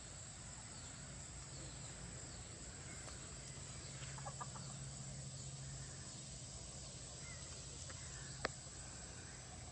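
Faint clucking of chickens, a short burst about four seconds in, over a low steady outdoor background. A single sharp click near the end is the loudest sound.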